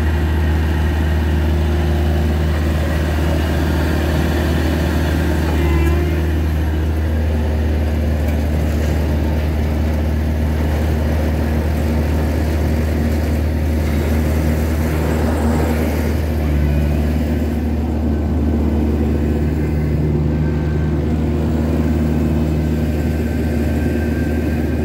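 Diesel engine of a Ditch Witch horizontal directional drilling rig running steadily, its note shifting slightly a couple of times.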